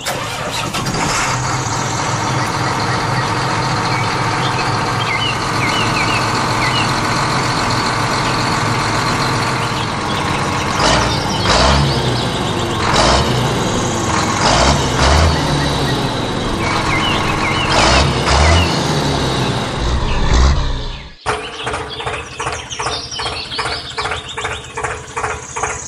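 Heavy vehicle engine sound, like a truck or tractor diesel, running steadily with hisses and low thumps. About 21 s in it cuts abruptly to a rhythmic chugging at roughly two beats a second.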